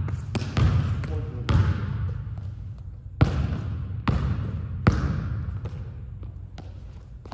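A basketball bouncing on a hardwood gym floor as it is dribbled: about five separate, irregularly spaced bounces over the first five seconds, each ringing on in the hall.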